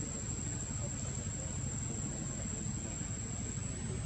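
Steady outdoor ambience: a continuous low rumble under a constant high-pitched insect drone.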